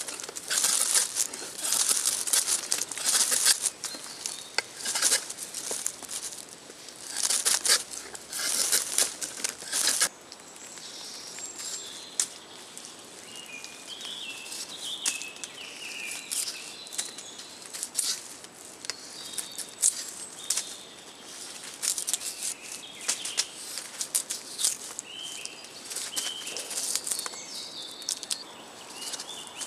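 Mora knife blade set through a branch and drawn two-handed along a wooden stick like a drawknife, shaving off long curls in repeated rasping strokes. The strokes come about a second apart and are louder for the first ten seconds, then lighter and more scattered.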